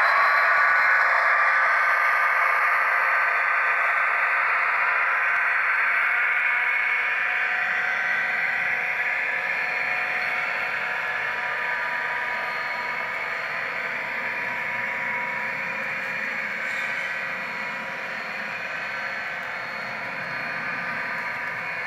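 HO-scale Kato F40PH model locomotive running along the track with passenger coaches in tow: a steady whirr of its motor and wheels on the rails, fading gradually as the train moves away.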